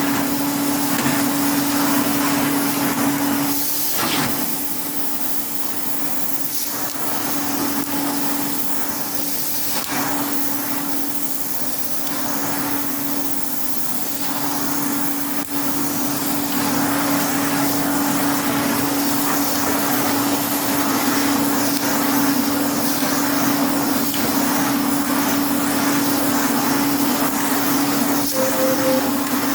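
1973 Hoover Constellation 867A vacuum cleaner with its 600-watt motor running flat out: a steady motor whine over a loud rush of air as it vacuums sand out of a carpet in carpet mode.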